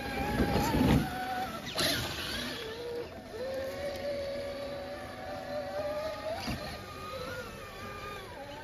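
Axial SCX6 RC rock crawler's electric motor and geared drivetrain whining as it crawls, the pitch rising and falling with the throttle. A loud scuffle in the first second and a couple of sharp knocks as the tyres climb over roots and rocks.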